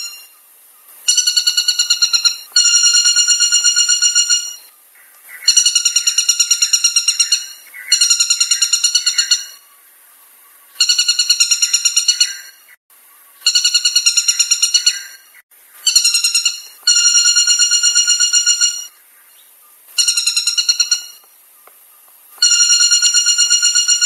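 Woodpecker calling: rapid series of high, ringing notes, given in phrases of one to two seconds with short pauses between them, about ten phrases in all.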